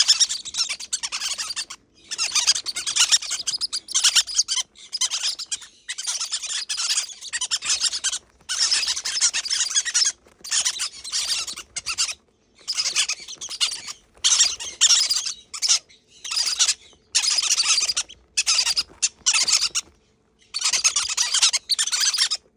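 Green-cheeked conure chicks giving harsh, hissy begging calls while being hand-fed. The calls come in repeated bursts of about half a second to a second and a half, with short pauses between them.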